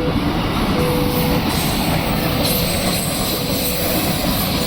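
Train running past close by: a steady, loud rumble and rattle of the cars on the rails, with a faint thin tone coming and going.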